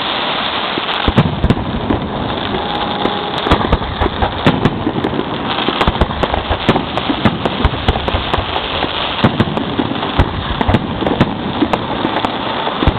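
Fireworks display going off close to the launch site: a dense, continuous crackle with many sharp bangs in quick succession.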